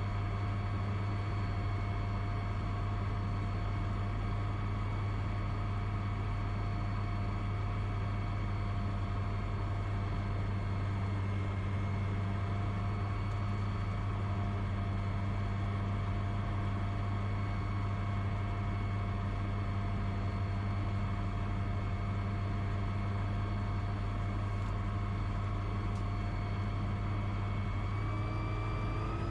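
DynAero MCR01 ultralight's piston engine and propeller idling steadily on the ground, heard from inside the cockpit. Near the end the pitch rises a little as the engine speeds up.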